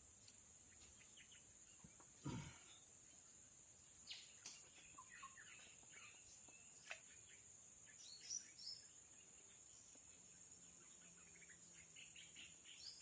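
Faint tropical forest ambience: a steady high insect drone with scattered short, falling bird chirps. A dull thump about two seconds in and two sharp clicks near the middle.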